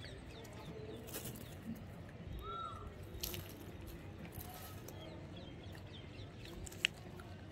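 Faint outdoor background with a few scattered small clicks, a short high chirp about two and a half seconds in, and a sharp click near the end.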